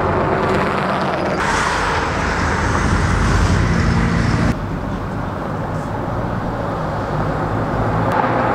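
Road traffic passing close by: engines and tyre noise from cars and a lorry on the road. It is loudest in the first half and drops off suddenly about four and a half seconds in, leaving steady traffic noise.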